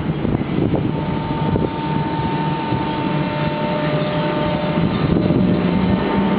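NS 1700-class electric locomotive pulling double-deck coaches away, a steady electric whine over the rumble of the train, with wind on the microphone.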